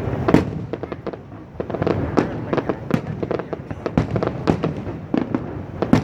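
Aerial fireworks going off in a rapid, irregular string of bangs and crackles, with several louder blasts spread through it.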